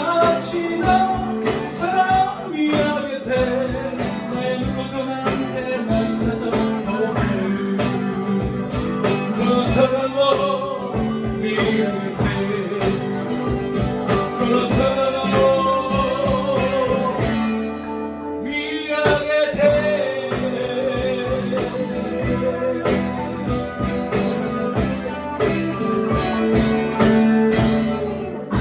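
A live band playing a song, with electric or acoustic guitar over a steady drum beat and a melody line on top.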